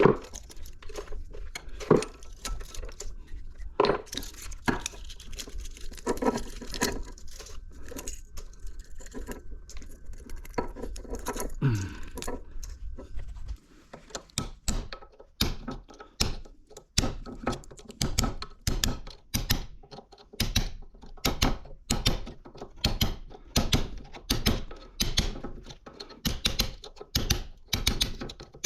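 Metal knocking and clinking as copper windings are worked out of a small electric motor's stator: irregular knocks at first over a low hum that stops about halfway, then a quick steady run of sharp metal strikes, about two a second.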